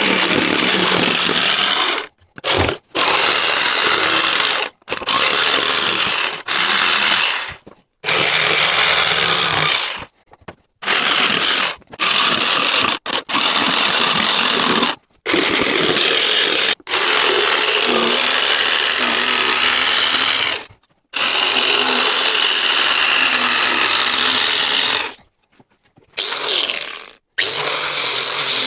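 A handheld power tool running on wood in a string of short runs, each one to five seconds long, stopping abruptly between them.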